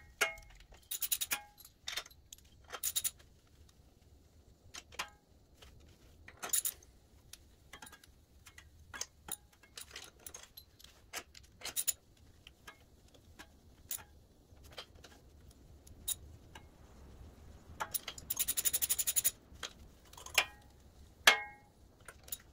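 Hand socket ratchet clicking in short runs as the cylinder head bolts of a Briggs & Stratton mower engine are run down, with a long run of fast ratchet ticks near the end. Scattered metallic clinks, a few of them ringing, come from the socket and bolts.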